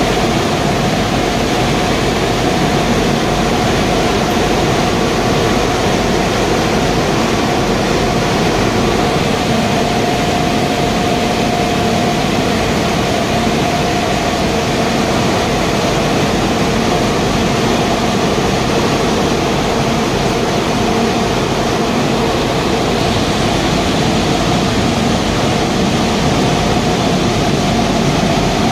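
Waste-tire rubber powder production line running: grinding mills, blowers and electric motors make a loud, steady machine noise with a constant whine running through it.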